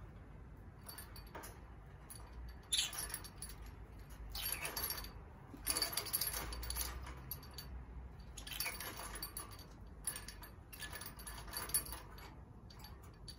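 Hanging beaded swing in a wire birdcage rattling and clinking against the metal bars in several bursts, as a rosy-faced lovebird attacks it in a temper.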